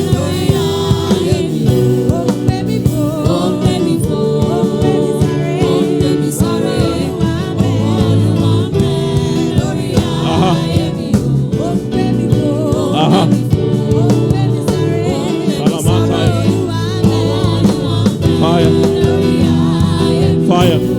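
Gospel worship music: long sustained chords with a voice singing over them.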